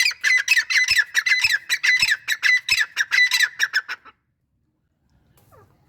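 Grey francolin (teetar) calling: a loud, rapid run of short, shrill repeated notes that stops about four seconds in, followed by a few faint calls near the end.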